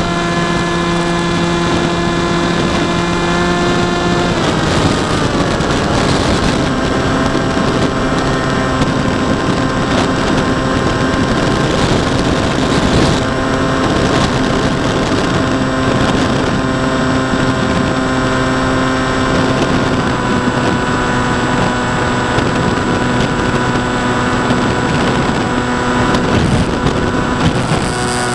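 Ranger FPV model airplane's electric motor and propeller heard from the onboard camera: a steady whine with several pitches that drops in pitch about four seconds in and shifts again around twenty seconds in, over wind rushing past the microphone.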